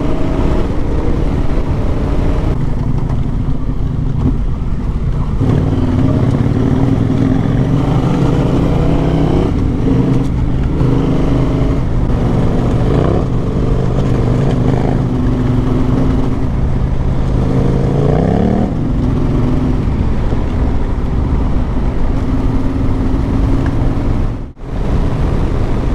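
Motorcycle engine under way, its pitch climbing and falling back as it is revved through the gears, with a steep rise about two-thirds of the way in. The sound cuts out briefly near the end.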